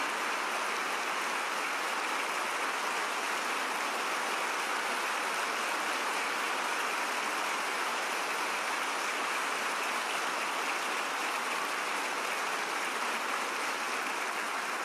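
A large audience applauding in a standing ovation: dense, even clapping that holds at one level without a break.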